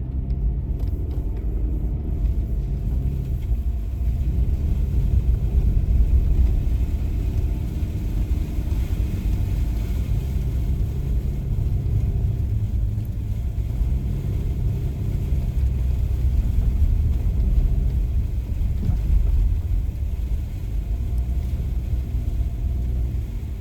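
Steady low rumble of a car driving, with engine hum and road noise and the engine pitch drifting slowly up and down.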